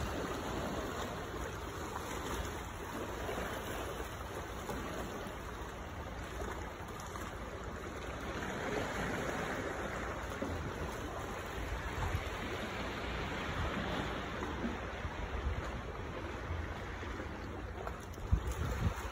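Sea water washing and sloshing among shoreline boulders, a steady rushing wash. A few low thumps near the end.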